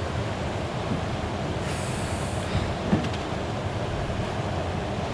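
Steady rushing noise of river water, with a brief high hiss about two seconds in and a few faint clicks.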